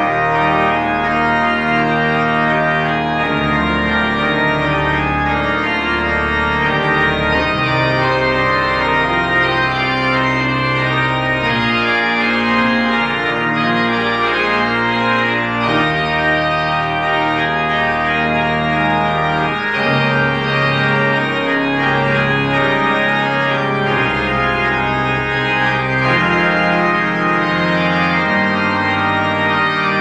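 Church organ playing sustained chords over a bass line whose notes change every few seconds, at a steady, full volume.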